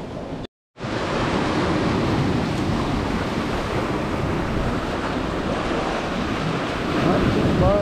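Storm surf: waves rolling in and breaking, with strong wind gusting across the microphone, a steady, dense rush. The sound cuts out completely for a moment about half a second in.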